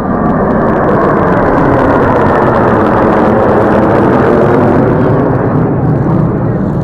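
Formation of nine military jet fighters passing overhead in a flyover: a loud jet roar that builds over the first second or two and eases near the end.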